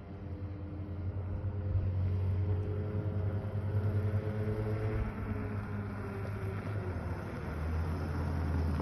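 Yamaha Zuma 50 scooter's two-stroke engine running as it rides toward the listener, growing louder over the first couple of seconds. The engine eases off about five seconds in and picks up again near the end.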